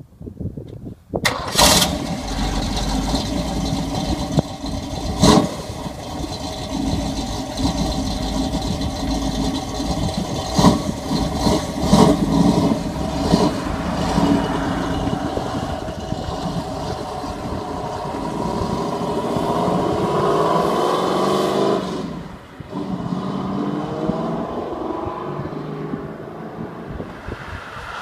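Eleanor-style 1967 Mustang fastback's V8 starting about a second in, then running with several sharp throttle blips. Later comes a longer rising rev that drops off sharply about three-quarters of the way in, and the engine runs on after it.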